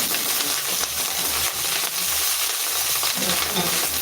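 Omena (small Lake Victoria sardines) sizzling steadily as they fry in hot oil in a pan, with a few light clicks of a utensil stirring them.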